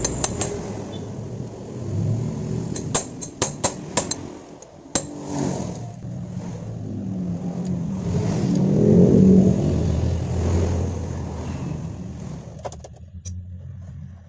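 Sharp metal clinks and taps, several in the first five seconds, as a motorcycle engine's chain and sprocket are handled during reassembly. Then a motor vehicle's engine hum swells and fades, loudest about nine seconds in.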